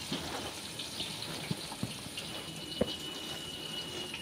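Hot oil sizzling steadily in a kadhai as stuffed okra fries, with scattered pops and crackles, one sharper about three seconds in. A faint thin high whine runs through the second half.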